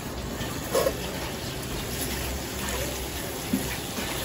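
Steady hiss of food cooking on a gas stove, with a brief voice sound about a second in and a light knock near the end.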